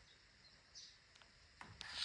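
Faint short bird chirps over near silence, one a little before a second in, with a few sharp clicks in the second half that grow louder near the end.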